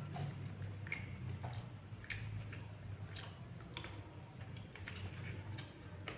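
A man eating rice and roast chicken by hand: quiet chewing and mouth sounds with scattered small clicks at irregular intervals, over a low steady hum.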